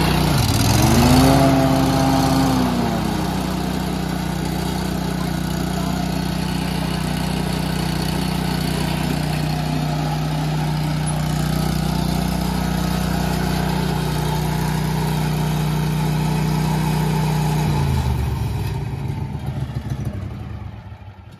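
Wright Velke 36-inch walk-behind mower's engine, just started, running. In the first few seconds it revs up and settles back, then runs steadily. Near the end it winds down and shuts off.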